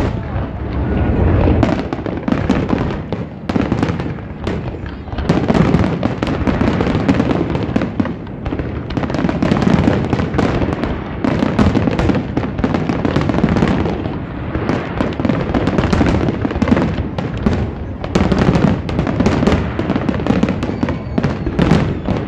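Fireworks display: shells bursting in quick succession, with many overlapping bangs and crackles. There are no pauses, and the loudness swells and dips every few seconds.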